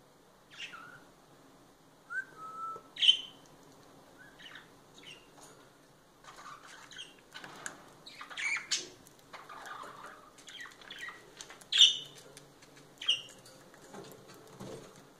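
Budgerigars giving short, sharp chirps every second or so, some dropping in pitch, with soft clicking from seeds being husked at the feeder.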